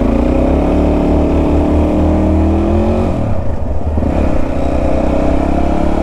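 Motorcycle engine accelerating, its pitch rising for about three seconds, dropping sharply at a gear change, then climbing again in the next gear.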